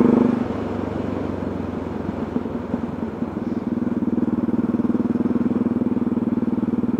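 Motorcycle engine heard from the rider's helmet while riding, with wind noise. The engine note drops away about half a second in, then settles back into a steady, evenly pulsing run from about three seconds.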